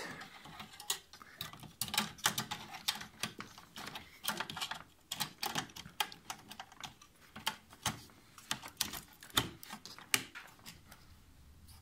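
Irregular light clicks and taps of a low-profile graphics card and its metal bracket knocking against a steel computer case as the card is worked into the motherboard slot by hand.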